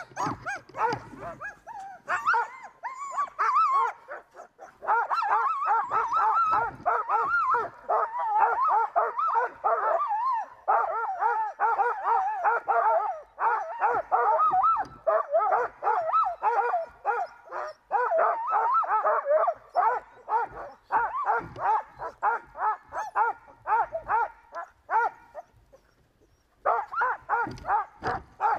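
A team of sled dogs barking and yelping excitedly, many rapid overlapping calls, typical of dogs eager to run. The barking breaks off briefly near the end, then starts up again.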